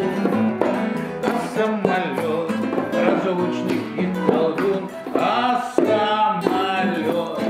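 A man singing to his own strummed and plucked nylon-string classical guitar, including a long held note with vibrato about five seconds in.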